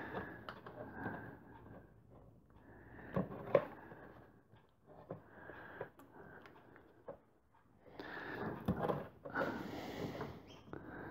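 Faint handling noises of a battery's plastic lifting handle and rope being unhooked: light plastic clicks and rubbing, with a couple of sharper clicks about three and a half seconds in and a louder rustle near the end.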